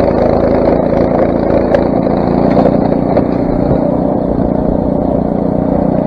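Craftsman snowblower's 6 hp Briggs & Stratton engine running steadily.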